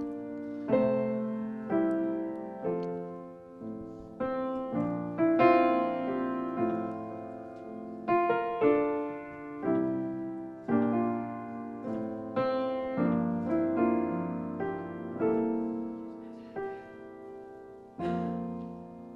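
Piano playing slow chords and single notes with no voice, each struck about once a second and left to ring and fade: the instrumental close of a song after its last sung line.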